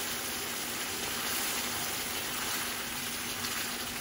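Hot ghee-roasted semolina sizzling and bubbling steadily in a wok as water is poured in and it is stirred.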